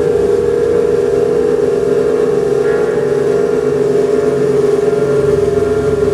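Electric amplifier feedback: a loud, steady drone held on one pitch with overtones, left sounding from the stage amps once the instruments stop playing. A higher tone joins in about two and a half seconds in.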